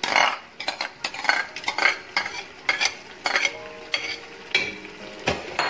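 Steel ladle scraping and clinking against a glass bowl and the rim of an aluminium pressure cooker as food is scooped into the pot, in an irregular run of sharp knocks and scrapes.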